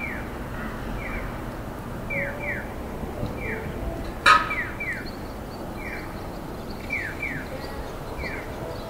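Japanese audible pedestrian crossing signal giving electronic bird-like 'piyo' chirps. Each chirp falls in pitch, and they come about once a second, single and double in turn, the pattern that tells blind pedestrians the walk light is green. A sharp click about four seconds in.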